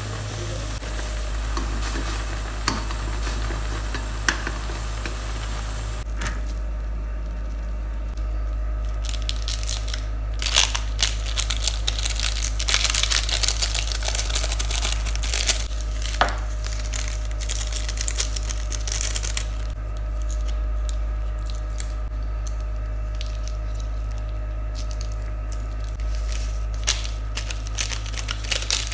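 Water boiling hard under blocks of instant noodles in a steel pan. About six seconds in this gives way to plastic seasoning sachets crinkling and tearing open in spells of sharp rustling, as the powder is shaken out over the cooked noodles. A steady low hum runs underneath.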